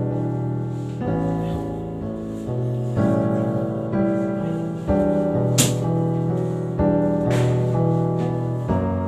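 Background piano music: sustained chords changing about once a second, with two brief noisy accents in the second half.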